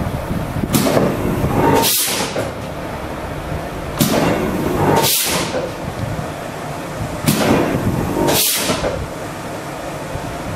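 LE 160 160-tonne eccentric press making three single foot-pedal strokes about three seconds apart over its running flywheel. Each stroke starts with a sharp clack, followed about a second later by a loud burst of hiss from its pneumatic clutch and brake.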